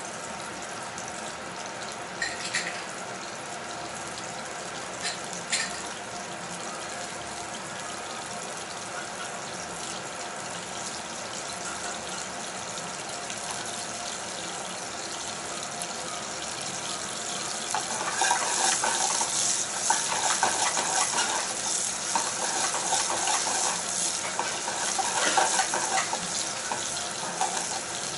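Shimeji mushrooms sizzling in oil in a frying pan over a gas burner, a steady hiss that grows louder and more crackly about two-thirds of the way through. Two light knocks come a few seconds in.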